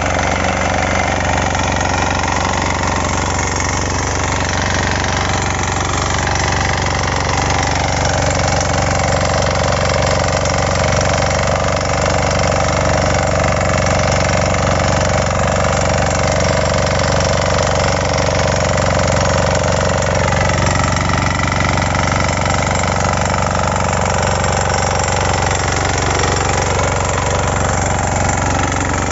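Kisan Kraft 6 HP inter-cultivator's single engine running steadily while tilling between crop rows.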